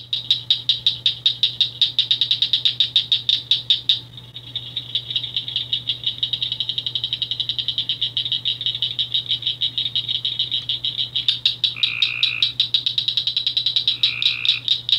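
Northern cricket frogs calling: a rapid series of sharp clicks that blur into a continuous chorus in the middle and separate again near the end. Two short, lower-pitched notes sound near the end.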